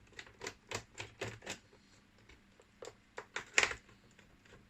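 Sharp plastic clicks and taps from the Volvo S60 instrument cluster housing being handled as its screws are taken out: a quick run of about five clicks, a pause, then a few more, the loudest about two-thirds of the way through.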